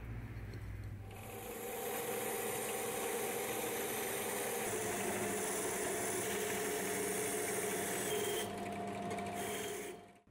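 Bench drill press spinning a wire brush wheel, whirring steadily while the rusty steel bayonet blade is held against it and scraped clean of rust and patina. The sound starts about a second in and dies away near the end.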